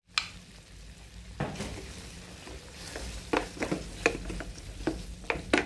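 Wooden spatula stirring flaked tuna and sauce in a nonstick frying pan, scraping and knocking against the pan several times, more often in the second half, over a low frying sizzle.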